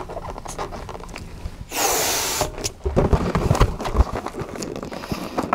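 A short rush of air about two seconds in as a small round latex balloon is worked on a hand balloon pump, then the squeak and rub of latex as the balloon is tied off.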